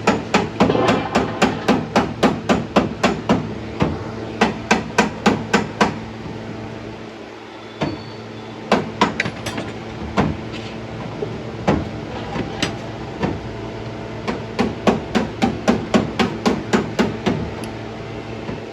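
Hammer blows struck in quick runs of about four a second, several bursts with short pauses between, over a steady low hum.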